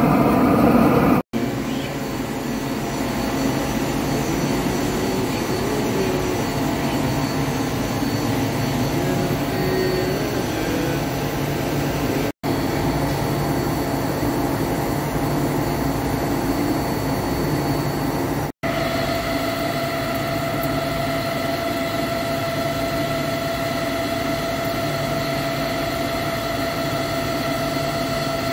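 Hankook PROTEC-9NC CNC lathe running, a steady machine hum with cutting noise and flood coolant. A steady whine comes in at a cut about two-thirds through. For the first second or so, a gas torch heating the steel roll shell is heard, louder than the rest.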